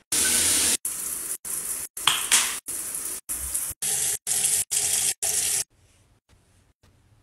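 Water running from a rain shower head and a bathroom tap, in a string of very short snippets broken by brief silent gaps about every half second. The water sound stops about five and a half seconds in.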